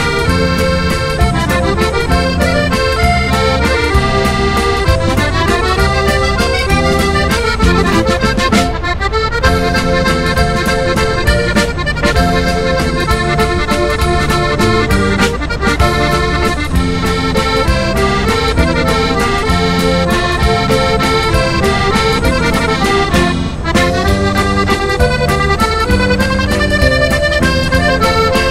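Background music: an accordion tune with a steady bass accompaniment.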